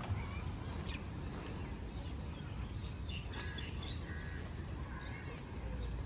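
Birds calling in a few short, clear calls, clustered in the middle of the stretch, over a steady low outdoor background noise. There is a brief click right at the start.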